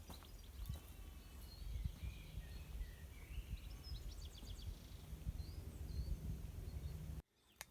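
Scattered short bird chirps and calls over a steady low rumble, with a few soft knocks; everything cuts off abruptly near the end.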